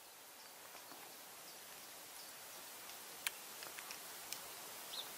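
Faint outdoor ambience with a few small distant bird chirps, and several light plastic clicks a little past the middle as MC4 solar cable connectors are handled and plugged together.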